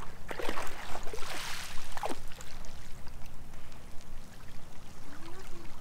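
Water splashing and trickling as a dog wades through shallow sea water, with a few plop-like splashes in the first couple of seconds.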